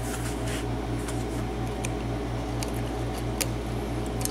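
Faint, scattered ticks of a lock pick and tension wrench working in the keyway of a Trelock euro profile cylinder, over a steady low hum that pulses several times a second.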